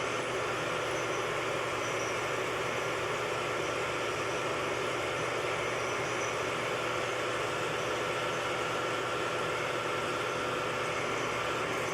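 Metal lathe running steadily, its motor and gearing giving a constant hum with a couple of steady tones.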